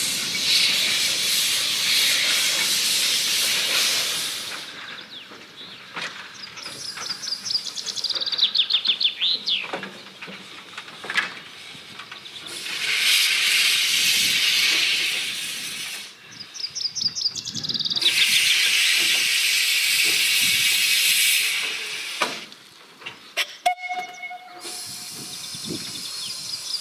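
Saxon IV K narrow-gauge steam locomotive 99 1568-7 moving slowly under steam. Long blasts of steam hiss from the open cylinder drain cocks alternate with runs of rapid rhythmic chuffs. There is a short whistle note late on.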